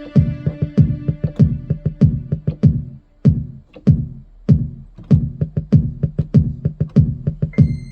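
Electronic beat: drum-machine hits in a quick, uneven rhythm under sustained synthesizer chords that fade out about three seconds in, with a high synth tone coming in near the end.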